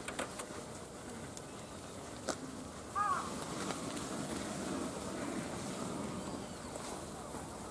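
Sika deer feeding at a trough: rustling feed and munching, with a few sharp clicks. One short, high call comes about three seconds in.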